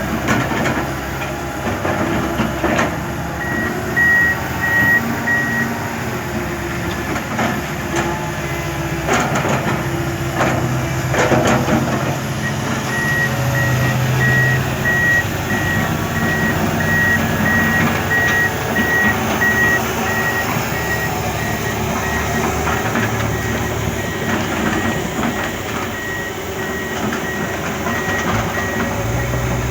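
Diesel construction machinery running, with a backup alarm beeping in a steady series of even beeps, briefly about four seconds in and then without a break from about halfway on. A few knocks and scrapes sound about ten seconds in.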